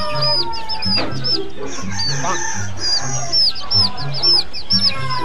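Many young chicks peeping rapidly, with short, high, down-hooked cheeps overlapping all the time. Background music with a steady low beat plays underneath.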